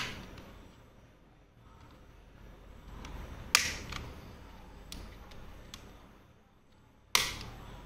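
Plastic spacebar keycap being snapped off and on its key switch and stabilizer wire: sharp clicks at the start, about three and a half seconds in and near the end, with a few fainter ticks between.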